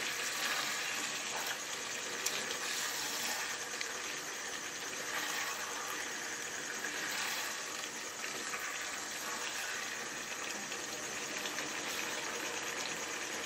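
Potato and yogurt curry sizzling and simmering in its oil in a wok on a gas burner: a steady hiss.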